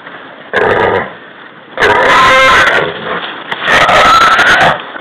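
Wild hog squealing: three loud, harsh squeals about a second long each, roughly two seconds apart.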